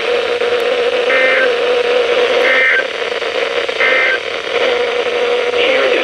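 A NOAA weather radio's speaker hissing with static over a steady hum, broken by three short, identical warbling data bursts about a second and a half apart. These are the SAME digital end-of-message code that closes a broadcast weather alert or required weekly test.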